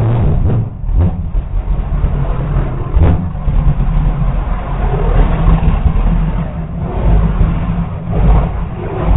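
Full Cat nitrous-alcohol liquid rocket engine firing on a static test stand: a loud, sustained, crackling roar that swells and dips. This is the test in which a burst fuel line sprayed alcohol out the sides into a fireball.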